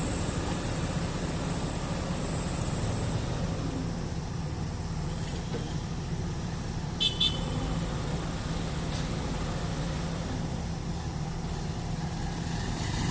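Excavator's diesel engine running steadily with a low rumble, with two short high-pitched beeps about seven seconds in.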